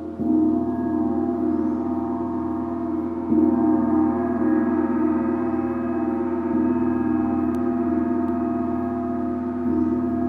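A gong is struck near the start and again about three seconds in, its deep ringing carrying on steadily with many sustained overtones.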